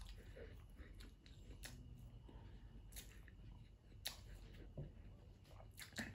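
Faint close-up chewing with a few soft mouth clicks, a quiet scattering of ticks over near silence.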